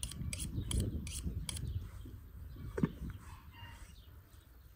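Knife being honed on a sharpening steel: about five quick metal-on-metal scraping strokes in the first second and a half. After that come quieter sounds of the blade cutting into a raw goat carcass.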